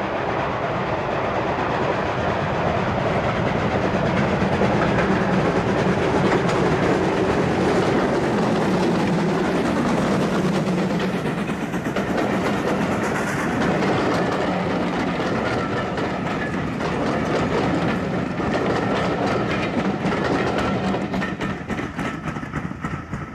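Steam train passing close by: the locomotive works past, then its passenger coaches go by with a steady clickety-clack of wheels over the rail joints, easing slightly near the end as the train moves off.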